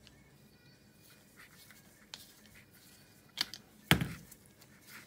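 Faint clicks and scratches of a screwdriver working the air-filter clamp on a small ATV carburetor, then two knocks, the second louder, as the screwdriver is laid down on the workbench.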